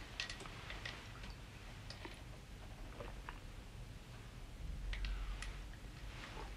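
Scattered small clicks and taps at uneven intervals in a quiet room, from people sipping schnapps and handling small drinking glasses.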